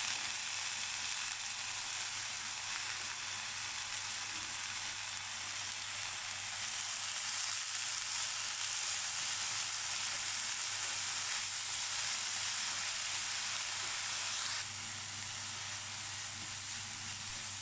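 Freshly added red amaranth leaves sizzling in hot oil in a non-stick frying pan as they are stirred with a wooden spatula: a steady frying hiss that eases a little about three-quarters of the way through. A faint steady low hum runs underneath.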